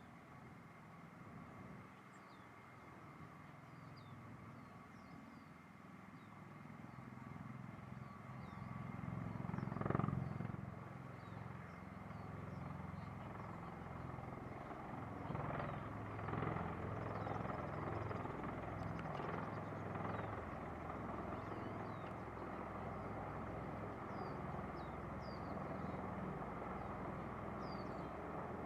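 A pair of MV-22B Osprey tiltrotors on approach: a low rotor and engine drone that builds gradually and grows louder as they come closer, with faint bird chirps above it.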